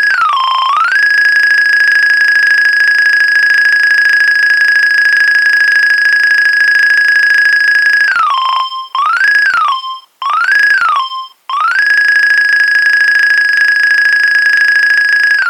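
Nokia 2300 monophonic ringtone from the phone's small speaker: one buzzy electronic tone that holds a high pitch for long stretches and slides down and back up. About eight seconds in, it makes several quick up-and-down slides broken by short gaps, then settles back on the held note and slides down again at the end.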